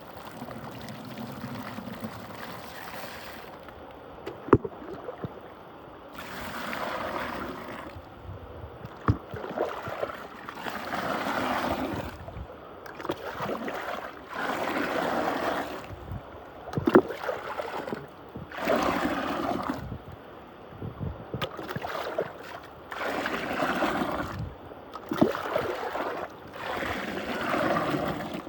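Muddy water swirling and gurgling in a whirlpool, in surges that swell and fade about every two seconds, with a few sharp clicks.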